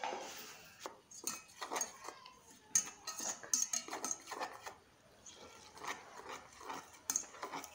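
A spoon stirring a dry mix of flour and spices in a bowl, scraping and clinking against its sides in quick, irregular strokes, with a short pause about five seconds in.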